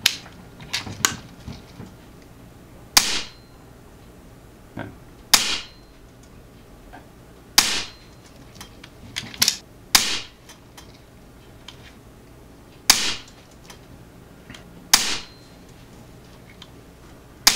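Regulated .22 ATI Nova Liberty PCP air rifle firing six sharp shots, about two to three seconds apart, in a chronographed shot string with 14.3-grain Crosman Premier hollow-point pellets at about 950 feet per second.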